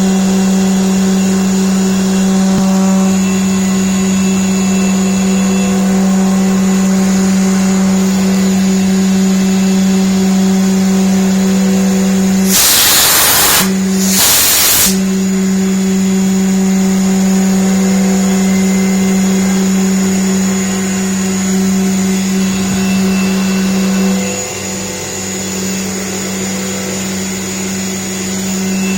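CNC machine running a grooving program: a steady hum with a thin high whine. About halfway through come two loud hisses, a second and then a shorter one, like bursts of air or coolant spray. The hum eases slightly near the end.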